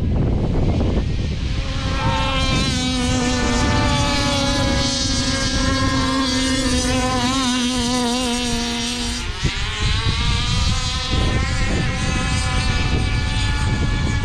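Whine of RC models' small electric motors, several pitches at once that waver and shift, with one steady tone that holds for several seconds and cuts off about nine seconds in. A low rumble of wind on the microphone runs underneath.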